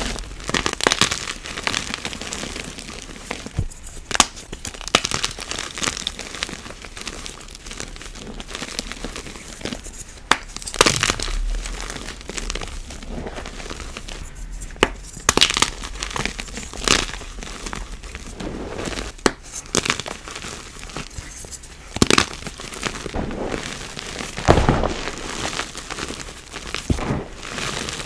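Dyed gym chalk cubes being crushed and crumbled, with irregular sharp crunches and cracks over a softer, continuous crumbling.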